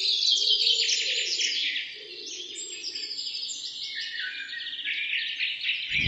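Many birds chirping and calling over one another in a dense, high-pitched chorus, a little quieter after about two seconds.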